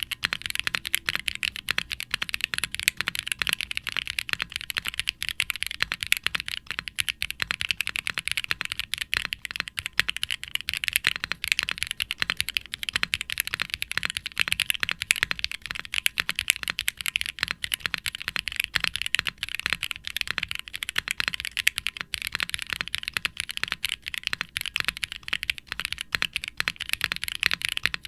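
Fast, continuous typing on a Wilba.tech Salvation aluminum mechanical keyboard with HMX Sonja linear switches (POM stems, PA66 housings) on an FR4 plate and GMK double-shot ABS keycaps, no dampening inside. Dense key-by-key clacks with a resonant ring from the undampened case.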